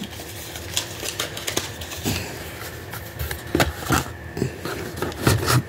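Small cardboard boxes rustling, scraping and knocking together as a hand rummages in a cardboard shipping box and lifts one out. Scattered short scuffs and clicks, with louder knocks a little past halfway and near the end.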